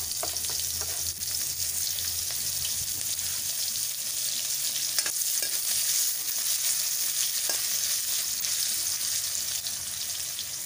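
Sliced onions sizzling steadily in hot oil in an iron karahi, stirred with a spatula, with a few light clicks.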